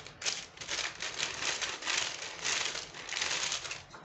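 Wooden rolling pin worked back and forth over shortcrust pastry dough between two sheets of baking paper: the paper crinkles and rustles in a swish with each stroke, several strokes in a row.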